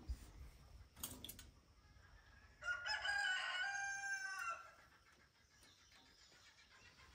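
A rooster crows once, a single call of about two seconds starting some two and a half seconds in. A few faint clicks come about a second in.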